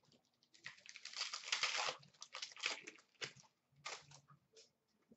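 Wrapper of a pack of hockey trading cards crinkling as it is torn open. A dense crackle runs from about half a second in to about two seconds in, followed by scattered rustles and clicks of cards being handled.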